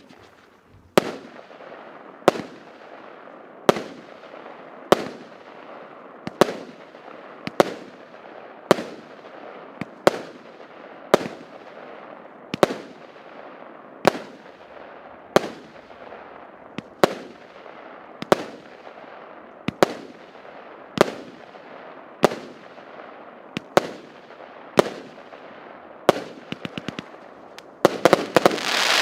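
A 25-shot, 0.8-inch firework cake firing one shot at a time, a sharp bang about every second and a quarter, each trailing off in a fading crackle. Near the end the shots come in a rapid flurry, closing with a louder, longer burst.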